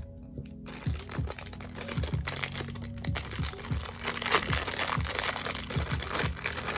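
Crinkling and crackling of a blind-box toy's plastic packaging being opened by hand, over steady background music.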